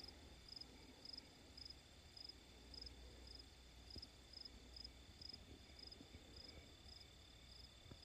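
A cricket chirping faintly and steadily, one short high chirp about twice a second.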